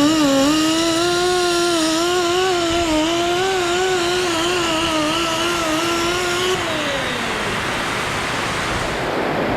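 High-speed power tool with a wire wheel running, its whine wavering in pitch as it is pressed against the work, then winding down after about six and a half seconds once released.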